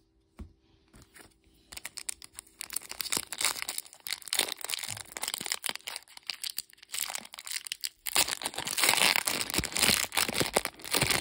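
Foil Pokémon booster pack wrapper crinkling as it is handled, beginning after a second or two. It gets much louder about eight seconds in, as the crimped top is worked and torn open.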